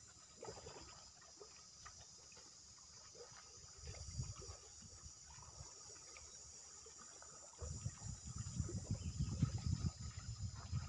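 Steady, high-pitched chorus of insects. A low, uneven rumble, like wind buffeting the microphone, comes in briefly about four seconds in and returns, louder, for the last few seconds.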